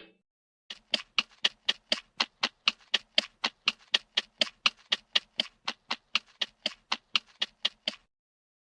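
A steady, even series of sharp light taps or clicks, about four a second, starting under a second in and stopping near the end.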